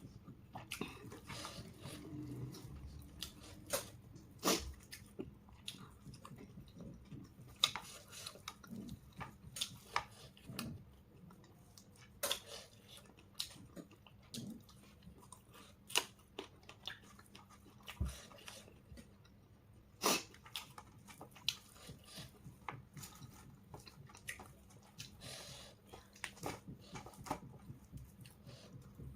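A person chewing and biting food, with irregular crunches and sharp mouth clicks scattered throughout.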